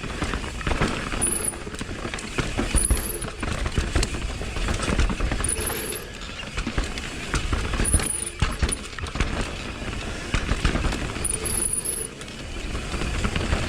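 Mountain bike riding downhill on a rough dirt trail: tyres rolling over the ground and the bike rattling, with many short knocks and clatter over a steady low rumble.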